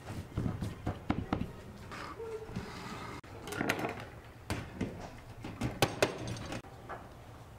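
Metal baking pan and metal serving trays being handled on a table and a wooden cutting board, giving a series of knocks and clanks as the pan is set down and turned over onto a tray.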